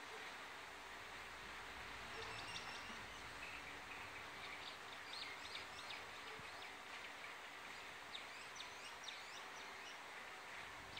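Chilean mockingbird (tenca) singing faintly: a run of short, quick high notes starting about two seconds in, over steady background noise.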